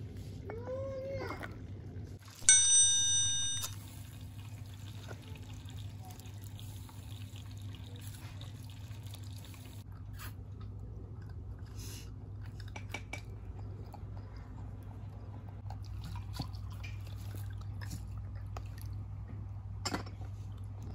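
Thick syrup poured into a glass jar of soaked basil seeds, then a sudden loud ringing tone lasting about a second. Scattered light taps and clicks follow.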